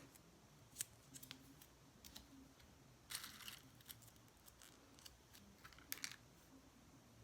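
Faint, scattered light clicks of small plastic press-on nail tips being picked up and set down, with a brief rustle about three seconds in.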